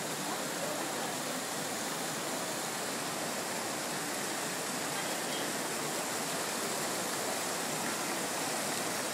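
Decorative fountain's arcing water jets splashing into its basin: a steady, even rush of falling water.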